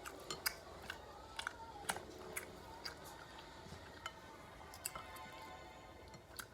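Close-miked eating sounds: chewing, with scattered sharp clicks and smacks.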